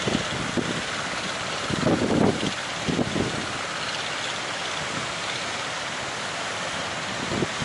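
Steady rush of sea surf and wind, with brief louder buffets of wind on the microphone about two seconds in, again near three seconds and near the end.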